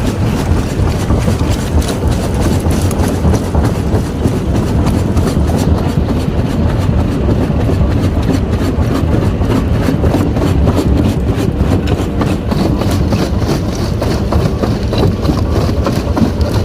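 Heavy engine-driven machinery running steadily: a deep engine rumble with rapid, continuous clattering over it.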